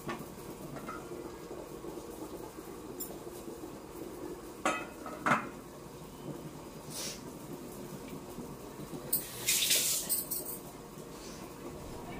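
Dishes and cutlery clinking and clattering, with water running in the background: two sharp clinks about halfway through and a longer clatter near the end.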